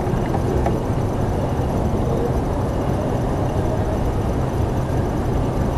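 Steady low rumble of a fishing boat's motor running at low speed, unchanging throughout.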